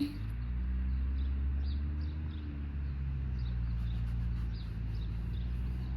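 A steady low mechanical hum with faint, irregular high ticks scattered through it.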